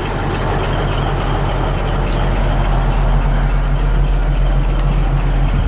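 Caterpillar D9 bulldozer's diesel engine running steadily at a low, even hum, with two or three faint clicks.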